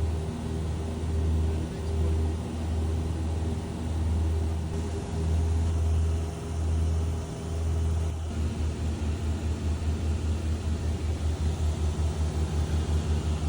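Light aircraft's piston engine and propeller droning, heard from inside the cabin: a low, steady drone with a pulsing beat that turns into a quicker, even throb about eight seconds in.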